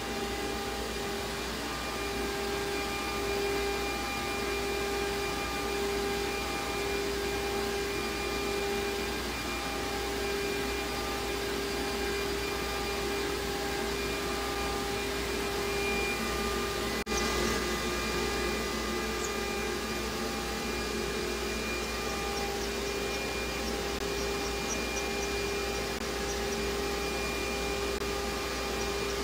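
CNC router spindle running steadily with a constant high whine, over the even air rush of dust collection drawn through the hose and dust shoe. A momentary break in the sound about two-thirds of the way through.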